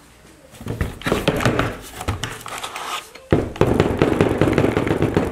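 Handling noise from a Stihl string trimmer's plastic housing being picked up and turned over: scraping, rustling and small knocks in two stretches, the second denser and louder.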